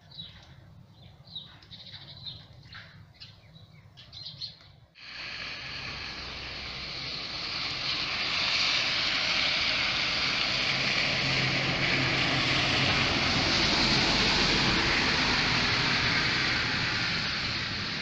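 Small birds chirping in short, separate calls. About five seconds in, a cut brings a steady rushing hiss that builds over a few seconds and then stays loud.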